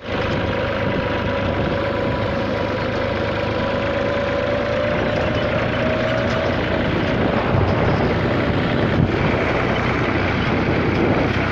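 Farm tractor's diesel engine running steadily as the tractor drives, with a steady whine in its note that rises slightly in pitch about halfway through.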